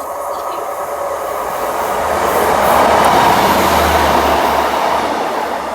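A train passing through a station, getting louder to a peak about three seconds in and then easing off.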